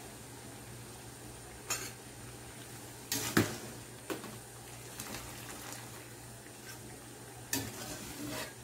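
A metal utensil clinks against a wok and a ceramic bowl as blanched watercress is scooped out of the hot water. There are about six sharp clinks, the loudest about three and a half seconds in, over a steady low hum.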